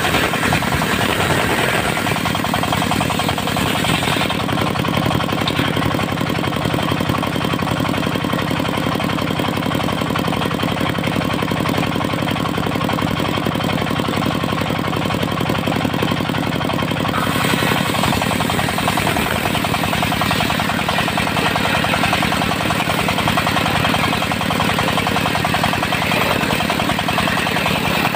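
Diesel engine of a portable circular sawmill running steadily, with a hiss over it that drops away about four seconds in and comes back at about seventeen seconds.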